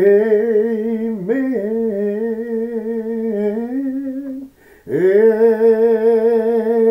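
A man singing a slow, drawn-out amen in the old-church style: long held notes with a gentle vibrato, with a breath about four and a half seconds in before the next note.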